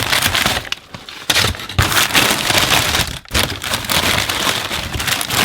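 Packing paper crinkling and rustling loudly as it is handled and pulled out of a shipping box, with brief lulls about a second in and just past halfway.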